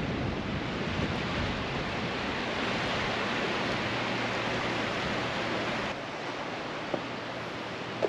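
Sea surf washing on a sandy beach, with wind: a steady rushing noise that drops a little in level about three-quarters of the way through.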